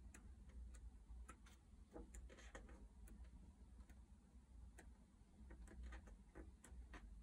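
Pages of a large hardback book being turned by hand one after another: faint, irregular papery flicks and ticks over a low background rumble.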